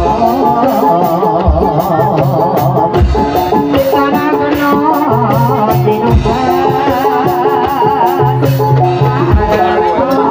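Live Javanese jaranan (kuda lumping) gamelan music: hand drums and metallophones playing steadily, with deep gong-like strokes every few seconds and a wavering melody line on top.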